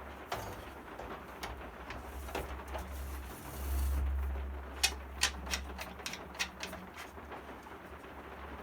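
Scattered light clicks and taps from the metal parts of a Makita 1219 mitre saw's blade guard and blade fixing being handled and refitted, over a steady low hum, with a short dull bump a little before the middle.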